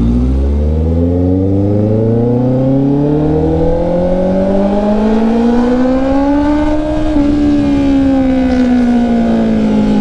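Honda CB650R's inline-four engine heard from the rider's seat while riding. The revs climb smoothly and steadily for about seven seconds, then fall away slowly.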